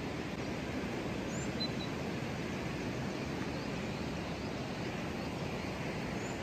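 Steady, even rushing noise outdoors, with a few faint short bird chirps over it.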